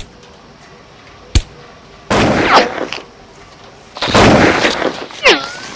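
Rifle gunfire in a staged firefight: a single sharp shot, another about a second and a half later, then a burst of rapid fire shortly after and a longer stretch of rapid fire from about four seconds in.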